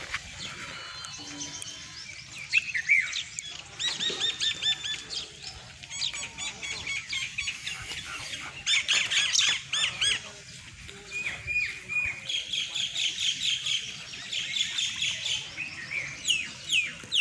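Small birds chirping in quick runs of repeated high notes, several runs one after another, over a faint steady background hiss.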